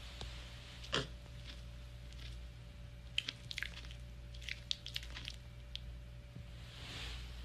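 A mini pig's mouth smacking and chewing. One sharp wet click comes about a second in, then two quick clusters of clicks around three and five seconds, over a faint steady hum.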